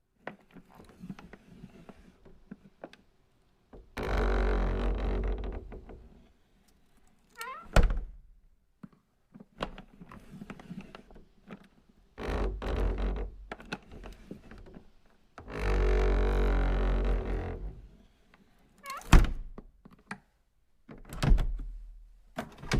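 A phone vibrating on a wooden surface: three buzzing spells of about two seconds each, rattling against the wood, with a few sharp knocks in between.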